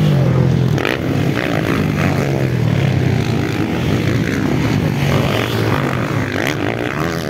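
Motocross dirt bike engines revving hard as the bikes race past and over the jumps, their pitch rising and falling.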